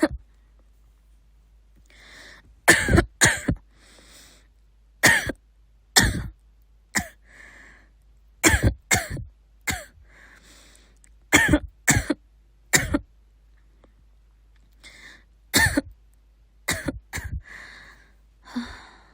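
A girl coughing over and over in short fits of one to three coughs, with breaths drawn in between the fits.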